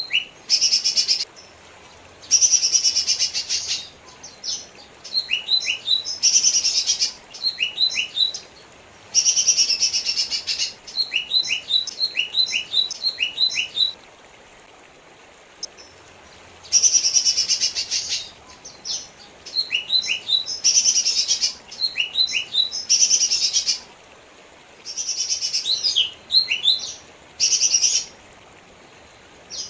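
Lesser green leafbird (cucak ijo mini) singing: repeated phrases of a dense, buzzy trill, each followed by a run of quick down-slurred whistled notes. The song pauses for a couple of seconds about halfway through.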